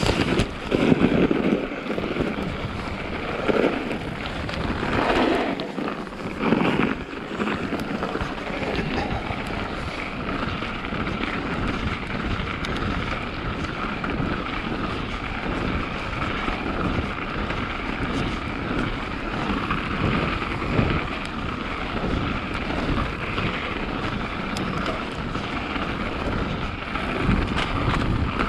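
Mountain bike rolling over a snowy forest trail: steady tyre and drivetrain noise with wind on the microphone, and a few louder bumps and rattles in the first seven seconds.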